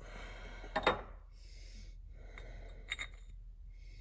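Steel sliding gears of an Allis-Chalmers B tractor transmission scraping and clinking as they are worked off their shaft. There is a sharp metal clink about a second in and smaller clinks near three seconds.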